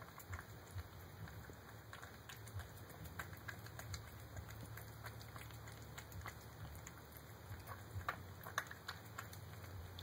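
Cat eating wet food from a bowl: irregular soft clicks and smacks of chewing and lapping, with a few louder ones about eight seconds in, over a faint steady low hum.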